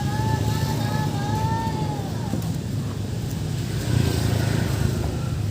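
Two-stroke Wagner 580 chainsaw engine idling with a steady low drone. For the first two seconds a long, wavering high-pitched tone sounds over it, then stops.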